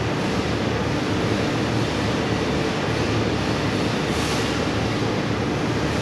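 Steady, unbroken din of factory machinery on a wire acid-cleaning line: a constant rumble and hiss with a low hum underneath.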